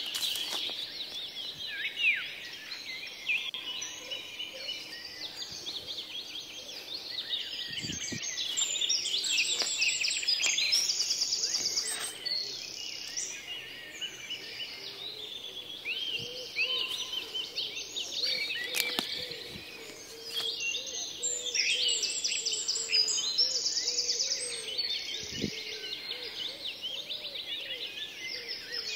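Many forest birds chirping and calling over one another, with fast repeated trills mixed in. A few short knocks stand out now and then.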